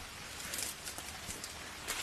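Outdoor rainforest ambience: a steady hiss with scattered crackles and rustles, a cluster of them about half a second in and again near the end.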